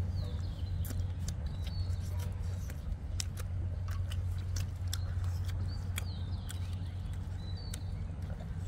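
People eating curry and rice with their bare hands: wet chewing and many short sticky clicks of fingers squeezing rice, over a steady low hum.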